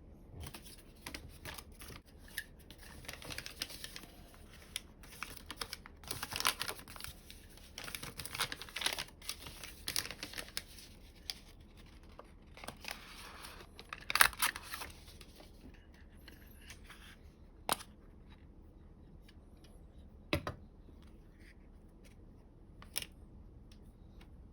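Square coloured origami paper being folded and creased by hand, with crinkling and rustling through the first half and the loudest crackle about fourteen seconds in. In the second half only three single sharp clicks are heard.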